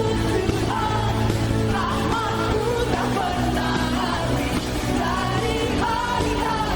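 Contemporary worship song: singing over a pop-style band, with a melody moving over sustained chords and a steady bass.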